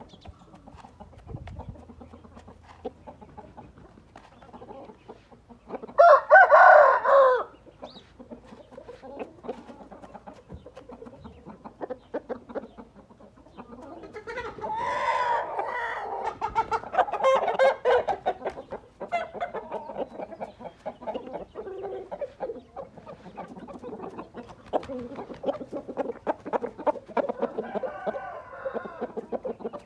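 Gamefowl roosters crowing and clucking: one loud crow about six seconds in, lasting about a second and a half, then a longer run of calls in the middle and quieter ones toward the end, over many faint clicks.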